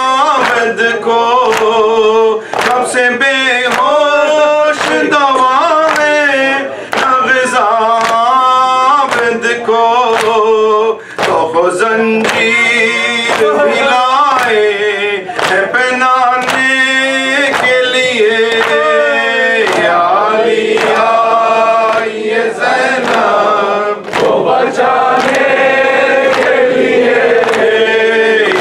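A man chanting an Urdu noha, a mourning lament, into a microphone, with voices joining in chorus on held notes. A steady beat of sharp strikes keeps time under the chant.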